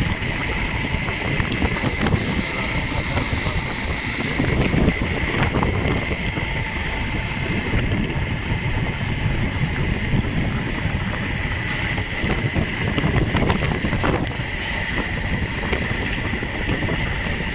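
Wind buffeting the microphone on a moving motorcycle, a constant low rushing over the bike's running, with a steady high whine throughout.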